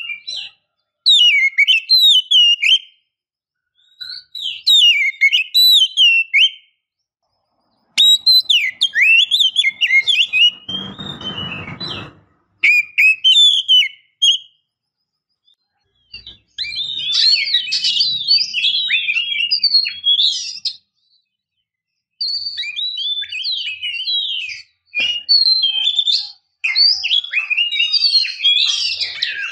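Oriental magpie-robin (kacer) singing loud, varied whistled phrases in bursts of a second or two with short pauses between them. A harsh rasping note comes around the middle. In the second half the song runs in longer, denser strings of notes.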